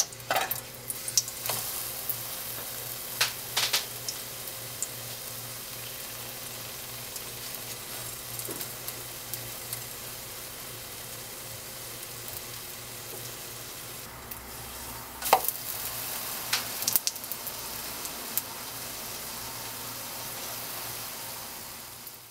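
Pancake batter sizzling steadily in hot oil in a nonstick frying pan. A slotted metal spatula clicks and scrapes against the pan in short clusters, in the first few seconds and again about fifteen seconds in.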